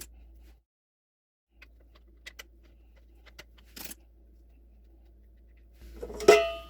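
Small clicks and taps of plastic water-filter fittings being handled as an adapter is screwed onto a new refrigerator water filter, with a moment of dead silence about a second in and a louder clatter of knocks near the end.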